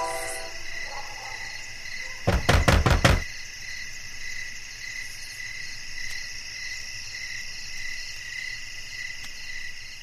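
Crickets chirping steadily in a night ambience, with a quick run of about five loud knocks between two and three seconds in. The last notes of a song fade out right at the start.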